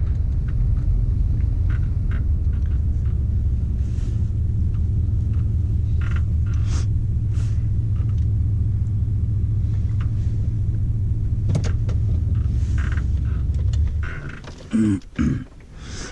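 Steady low rumble of a vehicle driving, heard from inside the cab, with a few light clicks and rattles over it. The rumble fades away about fourteen seconds in as the vehicle slows.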